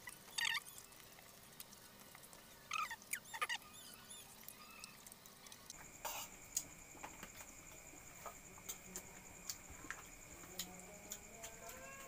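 Quiet mouth and hand sounds of eating crispy fried buff-banded rail by hand, with scattered small crunches and clicks. A few short, high squeaky chirps come in the first few seconds, and a faint steady high whine runs through the second half.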